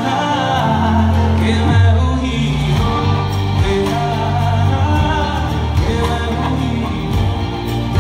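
Live Bollywood song played loud through a PA: a male singer over a band with drums, guitar and keyboards.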